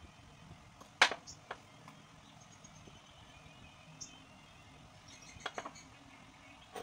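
A few scattered taps and knocks as hands press and square up a block of clay on a thin board, the sharpest knock about a second in and a short cluster of clicks near the end.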